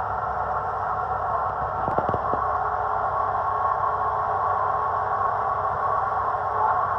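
Sailboat's engine running steadily while motoring, mixed with wind and water noise, and a few quick clicks about two seconds in.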